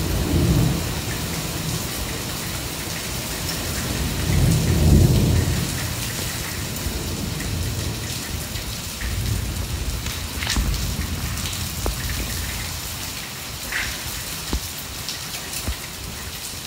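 Heavy thunderstorm downpour pouring steadily, with low rumbles of thunder, the loudest about four to five seconds in, fading to lighter rumbles later.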